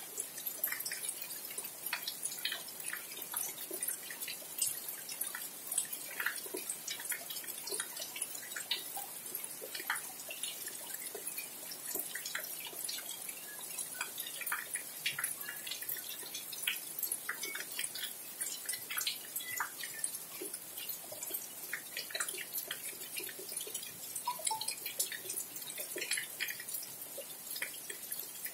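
Steady rain falling, with a dense, irregular run of close drips ticking over the hiss of the downpour.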